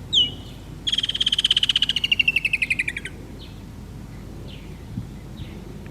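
Woodland kingfisher calling: one sharp, high note, then a rapid trill lasting about two seconds that slowly falls in pitch.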